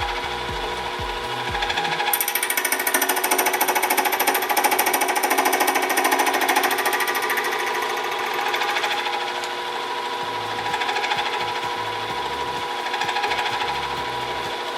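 Small benchtop metalworking machine with a 600-watt motor running, with a steady whine and a fast, even rattle. It gets louder, with an added high ringing, from about two to nine seconds in, as it cuts brass bushing stock.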